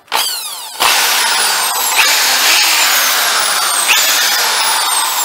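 Black & Decker TM650 electric drill switched on: a short blip of the motor, then it runs steadily at full speed, with two sharp clicks in the middle. It spins freely with no locking of the chuck, the built-up dirt that had been jamming it now cleaned out.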